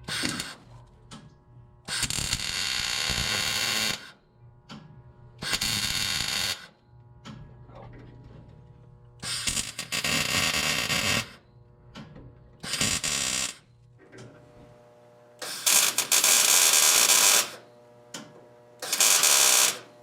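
A power tool running in six short bursts of one to two seconds each, with quiet pauses between.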